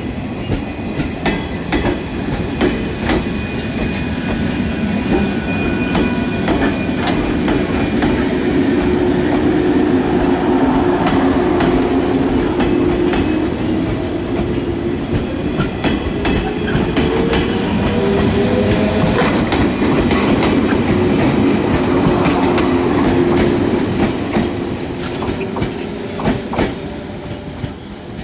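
JR 115 series electric multiple unit pulling away from a station and passing close by, its traction motors whining and rising in pitch as it gathers speed. The wheels click over rail joints, and the sound eases off near the end as the last cars go by.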